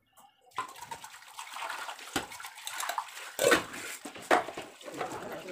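Kitchen sink tap turned on about half a second in, water running and splashing onto a stainless steel plate being rinsed under it, with a few sharp knocks as the plate is handled, the loudest about three and a half seconds in.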